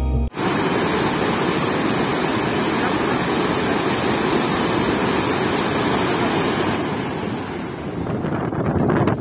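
Loud, steady rush of a monsoon-swollen waterfall cascading over rocks, turning gusty near the end with wind buffeting the microphone.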